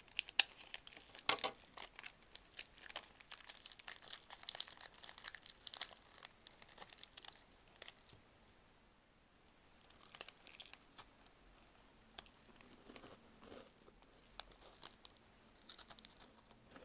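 Crinkling and crackling of a crunchy granola bar's plastic wrapper as it is cut open with scissors, the bar pulled out and the wrapper handled. It is busiest for the first several seconds, goes nearly quiet in the middle, and has scattered crinkles again near the end.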